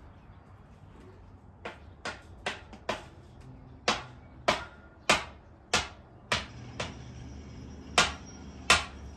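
Repeated hammer blows: about a dozen sharp strikes roughly half a second apart, starting a little under two seconds in, the later ones louder.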